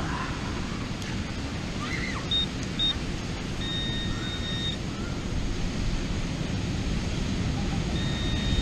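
Handheld metal-detecting pinpointer beeping as it is worked in the sand over a buried target: two short high beeps, then a longer one of about a second, and another long beep starting near the end. Steady wind and surf noise underneath.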